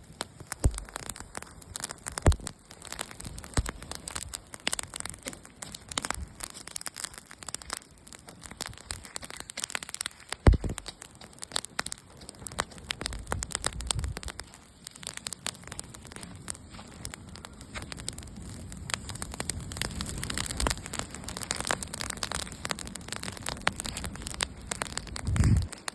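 Outdoor wood bonfire crackling and popping irregularly, with a few dull low thumps, the loudest about ten seconds in.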